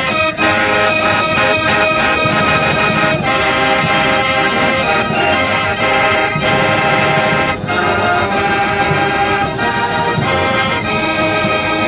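A J. Verbeeck fair organ playing a tune, its pipes sounding melody and chords together.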